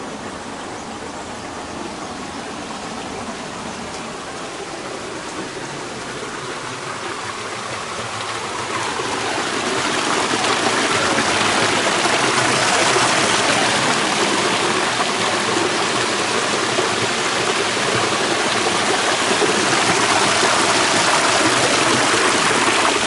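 Thermal spring water rushing out of its outlet channel and splashing down over rocks as a steady gush, growing louder about eight to ten seconds in.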